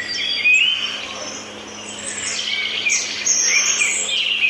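Several birds chirping and whistling at once: many short calls overlap one another without a break.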